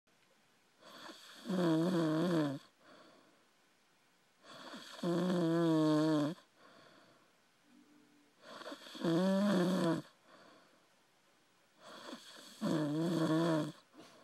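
A person passed out drunk, snoring heavily: four loud, buzzing snores about every three and a half to four seconds. Each starts softly, then swells into about a second of wavering, pitched vibration.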